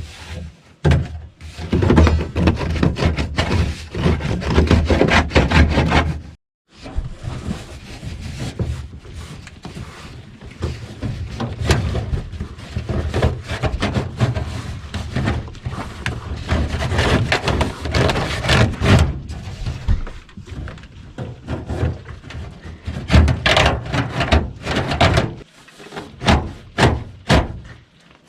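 Hands-on installation work in a small room: irregular knocks, thuds and clatter from handling and fitting heater duct hose. The sound drops out completely for a moment about six seconds in, then the knocking goes on.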